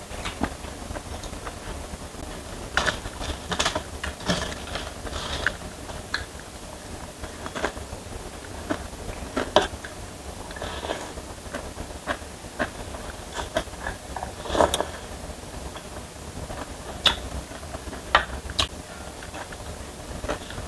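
A person eating instant noodles close to the microphone: slurping and chewing mixed with irregular sharp clinks of a spoon and fork against a stainless steel tray. A steady low hum runs underneath.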